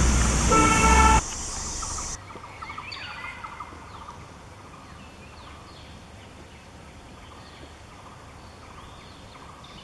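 Loud, steady vehicle engine and road noise with a brief held tone about half a second in, cut off abruptly just after a second. Then faint outdoor ambience with scattered bird chirps.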